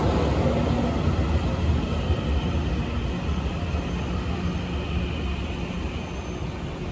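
Train running through the station with a steady low rumble and hum that slowly fades away.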